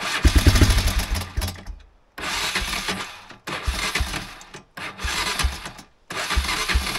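Old Honda ATV engine being cranked to start: five separate tries, the first about two seconds long and the rest about a second each, with brief pauses between them, the engine firing unevenly without settling into a run. The quad had died and would not restart even with spark, compression and fuel all present.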